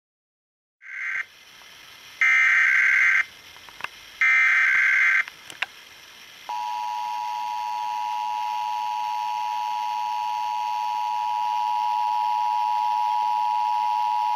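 Emergency Alert System Required Monthly Test received on FM radio: three harsh digital SAME header bursts of about a second each, the first cut short, then the two-tone attention signal (853 and 960 Hz together) held steady for about eight seconds.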